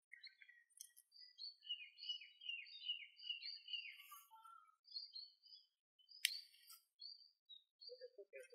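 Small birds chirping and twittering, with a quick run of repeated descending notes in the middle. A sharp click about six seconds in, and a short low warbling call near the end.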